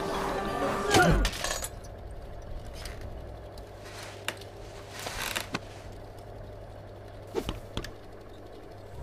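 A loud crash with a falling pitch about a second in. It is followed by a low steady hum with a few faint scattered clicks and short rustles.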